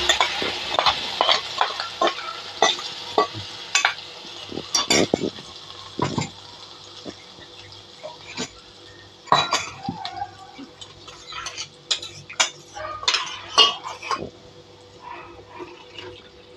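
Irregular clinks, knocks and scrapes of a steel mixer jar and utensils against an iron kadhai as spinach purée is tapped and scraped out into the pan, over a faint sizzle from the pan.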